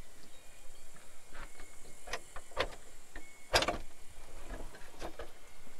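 Wooden door being unlatched and opened: a string of clunks and knocks, the loudest about halfway through, as someone steps out through it.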